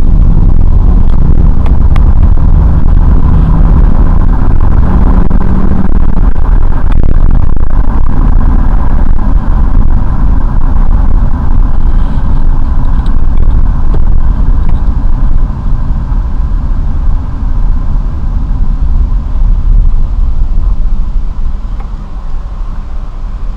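Car being driven, heard from inside the cabin: a loud, deep engine and road rumble that eases off near the end.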